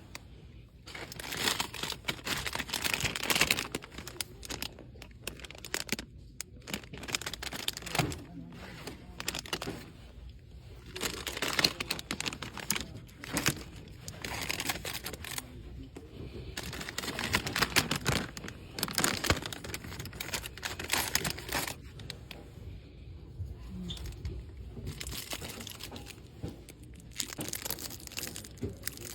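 Bags being handled, crinkling and rustling in irregular bursts with short pauses between.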